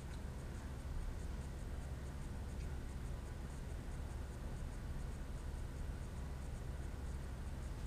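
Light scratching and faint clicks of small steel socket head cap screws and a hex key being handled in the fingers, over a steady low hum.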